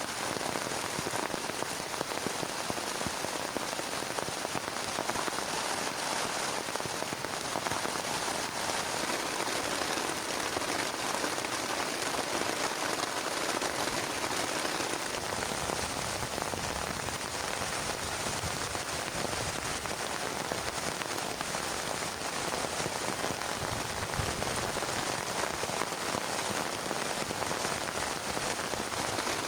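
Heavy rain falling steadily, a dense even hiss of many drops without pause.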